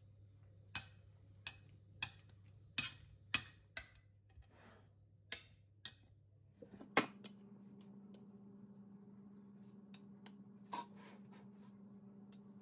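Light clicks and clinks of a kitchen utensil against a jar or dish while jam is scooped and spread on a cake, about one every half second for the first seven seconds, then two more near the end.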